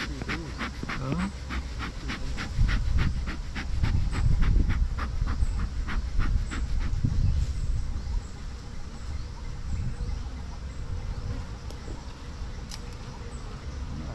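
Bee smoker's bellows pumped in quick regular puffs, about three a second, smoking a wild bee nest in the ground; the puffing stops after about seven seconds. A low rumble runs underneath.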